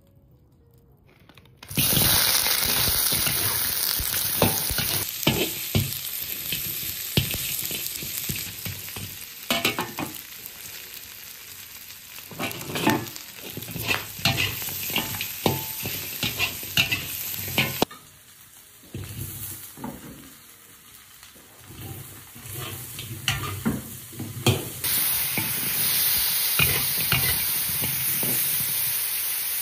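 Pork ribs sizzling in hot oil and caramelised sugar in a pan, stirred with a spatula that knocks against the pan again and again. The sizzle starts about two seconds in, turns quieter for several seconds past the middle, and comes back loud near the end.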